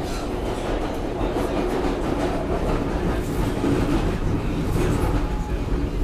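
Inside an R142A subway car running between stations: a steady rumble of wheels on rail with some clatter. The car's air conditioning and ventilation are off, so no fan hum is heard.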